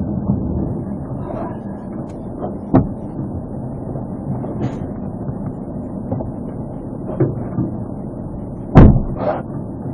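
Steady rumble of a police patrol car with a few light knocks, and one loud car-door slam near the end.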